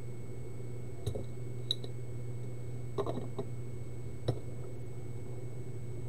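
Light clicks and taps of hand tools on a laptop motherboard and work mat, about six scattered over a few seconds, over a steady low hum with a faint steady high whine from the bench equipment.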